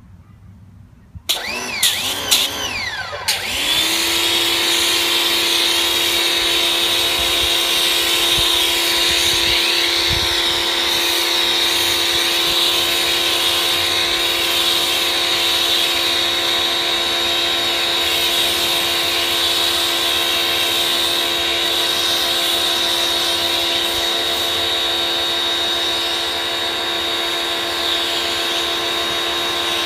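Force 1800 electric pressure washer starting up about a second in, uneven for the first two seconds or so, then running at a steady whine while it feeds the foam cannon, with the hiss of the foam spray.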